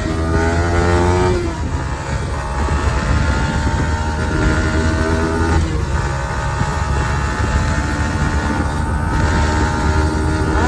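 Kawasaki ZX-10R's inline-four engine under way with its stock exhaust: the revs climb for the first second and a half and drop at a gear change, then hold fairly steady with another shift about halfway, and fall away near the end.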